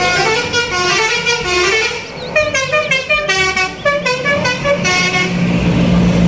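An Indonesian intercity bus's 'telolet' musical multi-tone air horn playing a quick tune of changing notes. Near the end it gives way to the steady drone of the bus's engine as it drives past.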